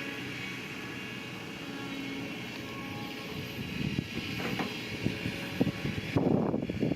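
Diesel engine of a heavy earthmoving machine running steadily. From about halfway through, irregular knocks and clatter build up, and they are loudest near the end.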